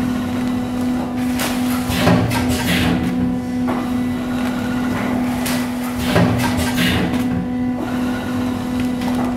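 Auger filler powder packing machine running: a steady electric hum with repeated short mechanical clunks every second or two as it cycles.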